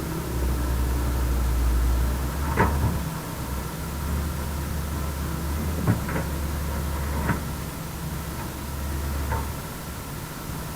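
Heavy diesel construction machinery running steadily, with several sharp metallic clanks spread through it.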